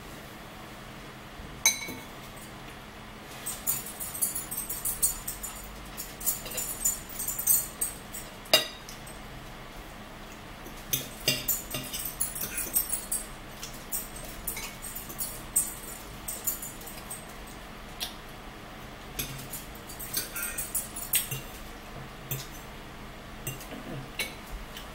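Metal spoons and forks clinking and scraping against bowls as two people eat, in irregular clusters of light clinks with a few sharper knocks, the loudest about two seconds in and near the middle.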